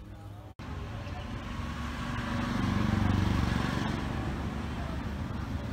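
A motor vehicle passing by outdoors: its engine and road noise grow louder to a peak about three seconds in, then fade.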